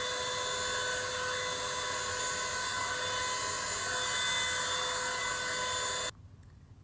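Revlon One-Step hair dryer and styler running steadily: a fan motor whine over a rush of blown air. It switches off abruptly about six seconds in.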